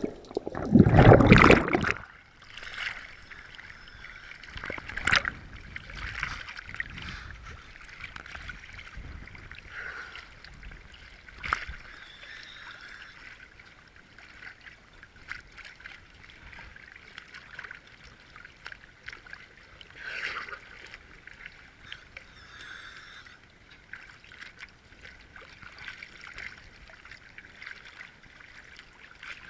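Underwater sound around a diver: a loud rush of bubbles about a second in, then a steady faint water hiss with scattered sharp clicks.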